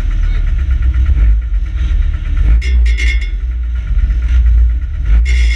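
Banger racing car's engine running at idle, a steady low rumble heard from inside the cabin. Short bursts of higher-pitched sound cut in twice, about three seconds in and again near the end.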